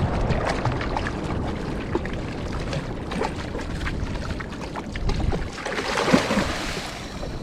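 Sea water sloshing and splashing against a small fishing raft, with wind rumbling on the microphone and scattered small clicks and knocks. A louder rush of water comes about six seconds in.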